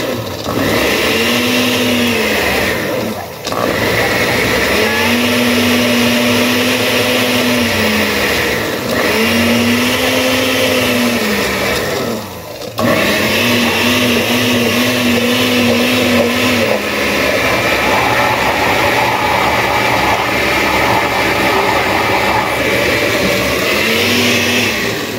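Glass-jar countertop blender running at full power, puréeing herbs, garlic, onion and pepper with water, vinegar and a little ice into a green seasoning. The motor's pitch wavers as the load shifts, and it cuts out briefly twice before running on.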